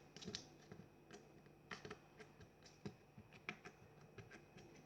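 Faint, irregular small clicks and squelches of slime being poked with one finger.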